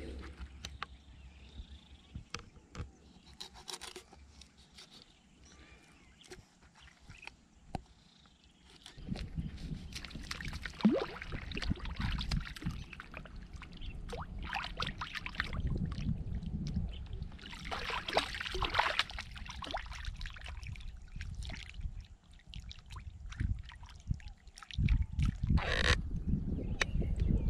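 Water splashing and trickling in irregular surges, with scattered clicks and knocks.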